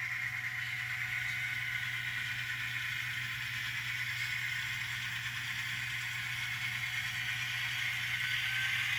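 N scale model diesel locomotive running on the layout's track: a steady whir from its motor and wheels, over a constant low hum.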